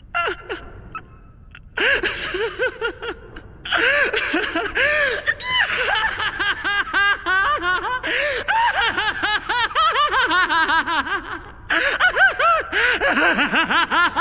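A sharp gasp, then a long bout of rapid, high-pitched, villainous laughter that comes in three runs with short breaths between them.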